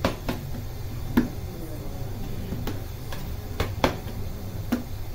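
Baker's hands dividing and shaping bread dough on a floured bench: sharp slaps of dough pieces hitting the bench and the hands, about seven at uneven intervals, over a steady low hum.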